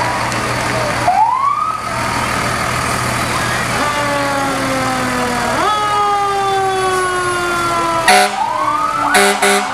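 Fire engine siren sounding as the truck passes. The pitch winds up about a second in and again near the end, and falls slowly in between. Short loud blasts come near the end.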